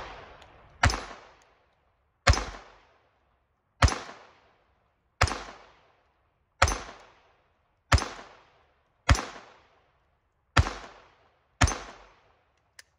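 Glock 44 .22 LR pistol fired nine times at a steady pace, about one shot every second and a half, each crack trailing off in echo. A faint click follows near the end.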